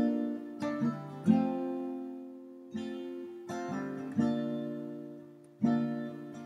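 Music: an acoustic guitar playing slow strummed chords, each one struck and left to ring out and fade.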